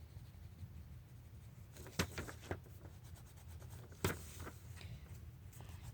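Faint pencil drawing on paper, with a few sharp knocks about two seconds in and another about two seconds later.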